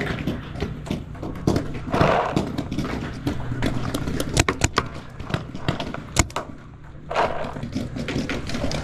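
Sharp pops of paintball markers firing across the field: a quick run of several shots about four and a half seconds in and a single loud one a little later. Short stretches of rustling from the player's movement and gear sound between them.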